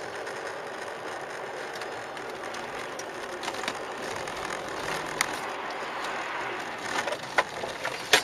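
Steady road and cabin noise from a car driving through snow spray on a snowy highway, with scattered sharp knocks from about five seconds in and a loud thump near the end as the car leaves the road into the snow.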